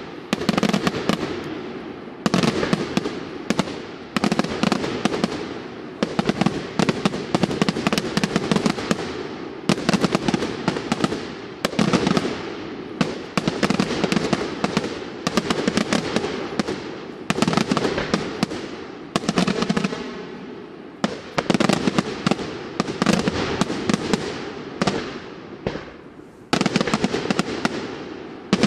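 Daytime fireworks display: a dense, unbroken barrage of aerial shell bursts and sharp bangs, surging in waves about every two seconds with a short lull twice.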